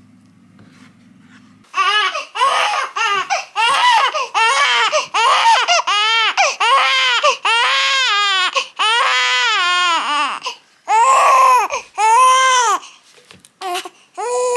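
One-month-old baby crying hard: a long run of loud wails, each rising and falling in pitch, coming one after another with short breaths between, starting after a faint low hum in the first second and a half. He is crying over a freshly soiled diaper.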